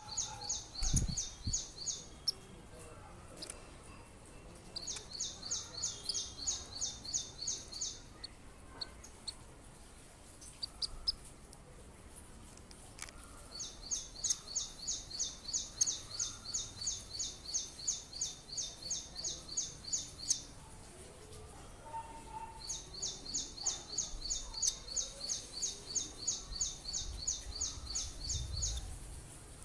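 A bird calling in long runs of rapid, high, evenly spaced chirps, about five a second, four runs of several seconds each with pauses between. A low thump about a second in.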